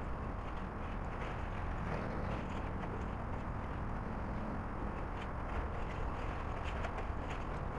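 Hydraulic excavator demolishing a concrete building: a steady low rumble with light, irregular clicking and crackling of breaking debris.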